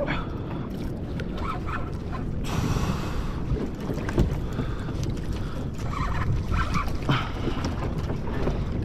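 Wind buffeting the microphone with water sloshing against the kayak's hull at sea, and a few light knocks.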